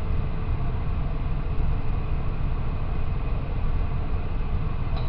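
Kitchen fan running steadily: an even low rumble with a faint hiss above it.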